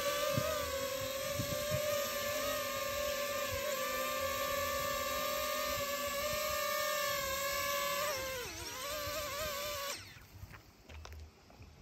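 DJI quadcopter drone's propellers whining steadily while it hovers close by. The pitch dips and wavers near the end as the drone is taken in hand, then the motors cut off.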